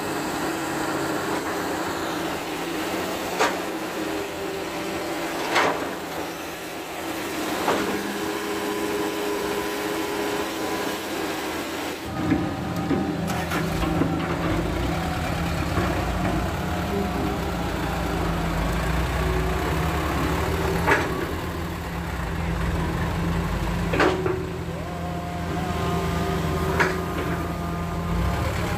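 Diesel engines of a Hitachi hydraulic excavator and a small dump truck running, with sharp knocks every few seconds from the digging and loading. About twelve seconds in, a heavier, deeper engine rumble comes in and stays.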